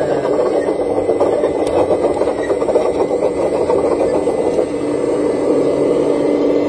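Remote-control Liebherr R 970 SME model excavator whirring steadily from its motors and gearing as it creeps along on its tracks, with a constant hum that steadies a little past the middle.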